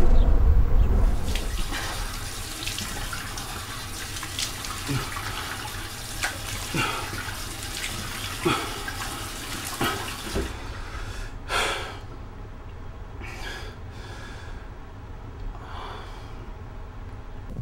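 Water running from a tap into a sink while a man splashes it on his face. The running water stops about ten seconds in, and a few brief separate sounds follow.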